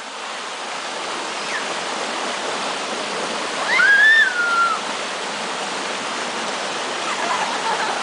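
Creek water rushing steadily over boulders in small cascades. About four seconds in, one high-pitched squeal rises, holds and slides down, from a swimmer lowering herself into the cold water.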